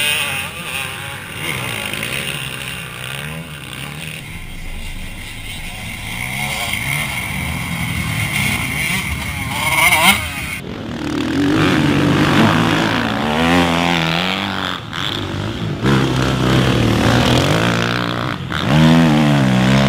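Motocross bikes' engines revving as riders accelerate through the corners, the pitch rising and falling with throttle and gear changes. The sound changes abruptly about four and eleven seconds in.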